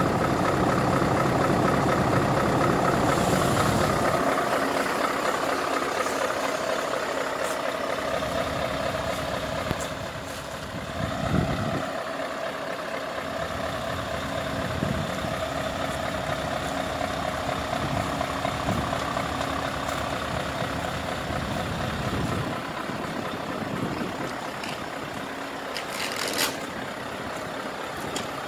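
Scania S520's 16-litre V8 diesel idling steadily, with a short hiss of air near the end.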